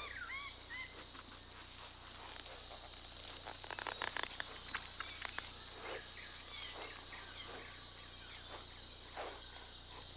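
A steady, high-pitched chorus of insects, with a few short bird chirps about a second in and scattered rustles and clicks through the middle.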